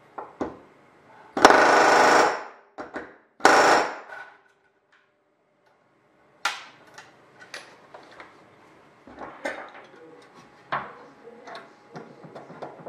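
Pneumatic rivet gun back-riveting solid rivets into the aluminium spar sheet over a steel bucking block: two short rapid-fire bursts of hammering, about a second and a half in and again two seconds later, the first the longer. Scattered light clicks and taps follow.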